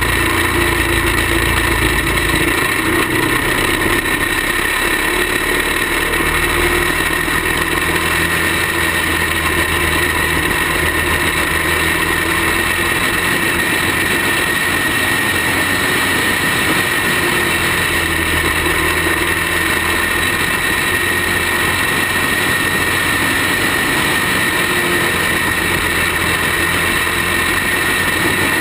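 Caged racing kart's small engine running at racing speed, heard on board as a steady drone that barely changes through the corners.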